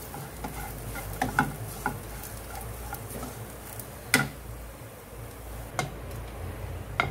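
Wooden spatula stirring and scraping fried bitter gourd strips in a nonstick frying pan, with a few sharp knocks against the pan, the loudest about four seconds in.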